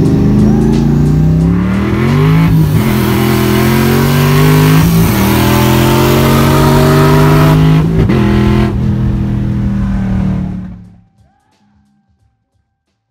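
Holden VZ Commodore V8 accelerating hard through the gears, heard from inside the cabin: revs climb, drop back at each gear change, and climb again. The sound fades out near the end, with music mixed in.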